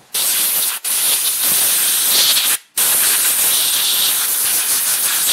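Compressed-air blow gun blasting air to clean dirt off a lawn mower carburetor: a loud, steady hiss in three blasts, the first one short, with a brief break near the middle.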